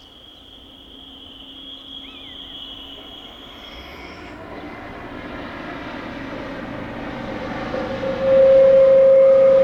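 A train approaching, its rumble growing steadily louder. A loud steady tone breaks in about eight seconds in and is the loudest sound. Early on a faint steady high tone fades out about four seconds in.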